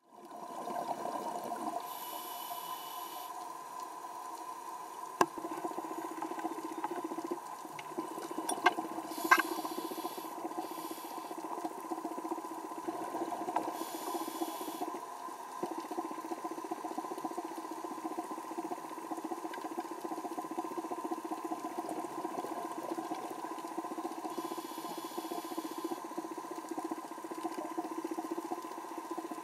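Underwater ambience picked up through a camera housing: a steady hum with constant fine crackling. A few sharp clicks come about five and nine seconds in, and there are brief hissing patches now and then.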